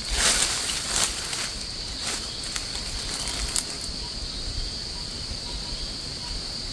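Dry leaf litter rustling as a person shifts forward on hands and knees over the forest floor: a longer rustle in the first second and a half, then a few short ones. A steady high-pitched insect drone runs underneath.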